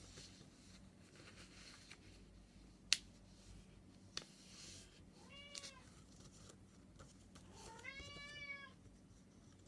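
A cat meows twice: a short meow about five seconds in and a longer one near the end. Around it are the faint rustle and taps of a paper envelope being handled on a table, with one sharp tap about three seconds in.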